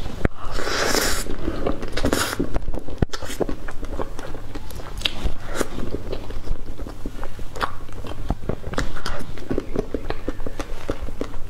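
Close-miked eating of whipped-cream fruit cake: a spoonful taken into the mouth in the first second, then chewing with many small wet mouth clicks.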